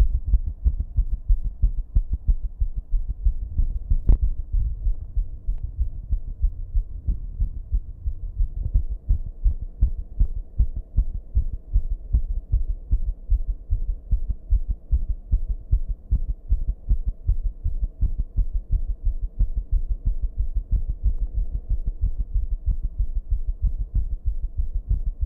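A fast human heartbeat recorded up close: a long run of rapid, low thudding beats. A low buzz runs underneath, and a single sharper click comes about four seconds in.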